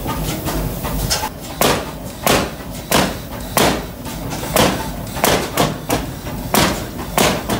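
Large antique hit-and-miss stationary engine with heavy twin flywheels, firing in sharp exhaust bangs that begin about a second and a half in. The bangs come at uneven gaps as the engine fires on some strokes and coasts through others.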